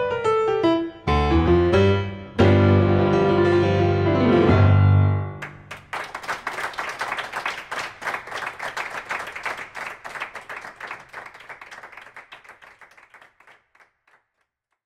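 Piano playing the last bars of a blues number, ending on a held low chord about five seconds in. Then applause follows, fading away over the next several seconds.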